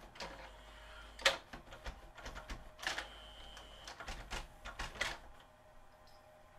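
JVC XL-M407 CD changer's mechanism switching to disc 2 in the magazine: a small motor running with a string of clicks and clunks, a thin steady whine for about a second near the middle, and everything stopping a little after five seconds in.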